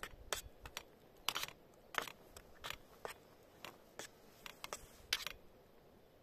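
A metal utensil clicking and scraping against a small nonstick pan while chicken pieces are stirred through batter: a dozen or so sharp, irregular taps that stop about five seconds in.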